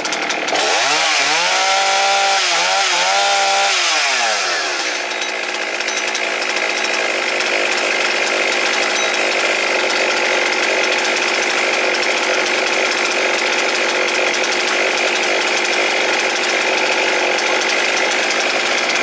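Husqvarna 266 XP two-stroke chainsaw running on its freshly rebuilt carburetor. It revs up within the first second, dips twice, drops back about four seconds in, then runs steadily and fine.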